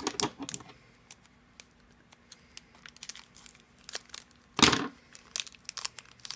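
Crinkling and rustling of a small plastic toy wrapper being handled and unwrapped, in short spurts. There is a louder burst about two-thirds of the way through as scissors cut into the wrapper.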